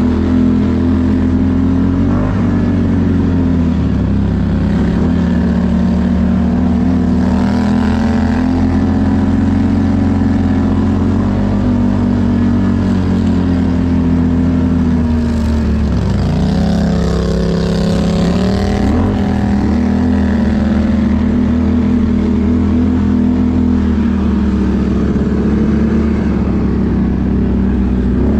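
ATV engine running steadily while riding, its pitch dropping briefly about halfway through as the throttle eases off, then rising again as it pulls back up.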